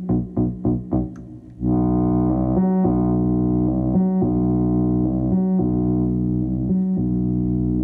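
Buchla Music Easel synthesizer, its complex oscillator's pitch stepped by a sequencer between two stacked pitches: short plucked notes about four a second, then about a second and a half in a continuous buzzy tone that dips briefly about every one and a half seconds.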